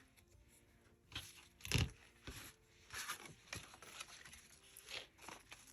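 Paper and fabric being handled on a craft table: a string of short, soft rustles and scrapes, with a slightly heavier thump about two seconds in.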